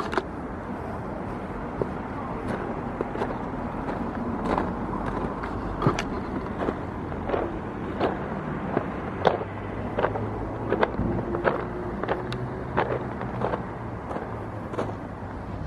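Footsteps at a steady walking pace, a sharp step about every two-thirds of a second, over the steady hum of road traffic.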